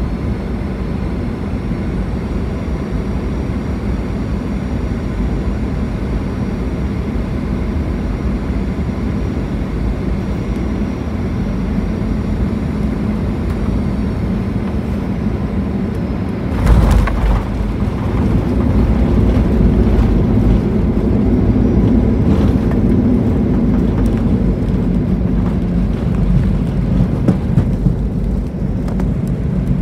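Cabin noise of a Boeing 737-800 on short final, a steady engine and airflow drone. About 17 seconds in the main wheels touch down with a sudden thump and jolt. A louder, sustained rumble of the landing roll follows as the airliner slows on the runway.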